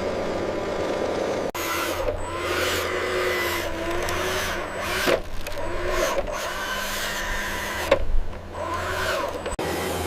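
Small electric motors of RC model machinery whirring, their pitch rising and falling as they work, with a couple of sharp clicks. The sound changes abruptly about a second and a half in and again near the end.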